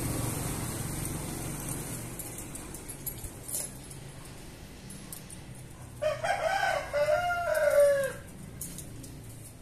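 A rooster crowing once, about six seconds in: a cock-a-doodle-doo of about two seconds, its last note held and falling away. Before it, a low steady hum fades slowly.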